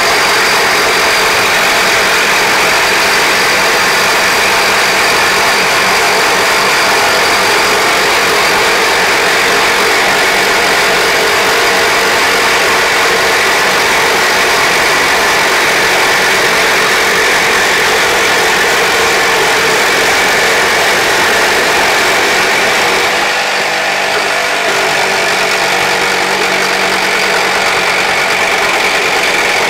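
Two cordless reciprocating saws with carbide-tipped blades running flat out, sawing through 2-inch schedule 304 stainless steel pipe in a steady, loud grinding rasp. The blades are working hot through the steel. The noise thins slightly about three-quarters of the way through.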